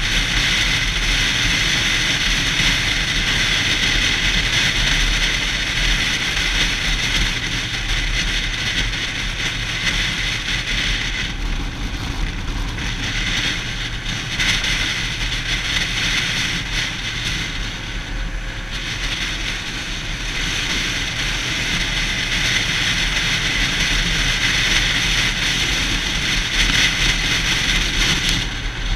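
Yamaha YZF-R6 sport bike on the move, its inline-four engine running under way with steady wind rush over the camera. The sound eases off for two spells about halfway through, then picks up again.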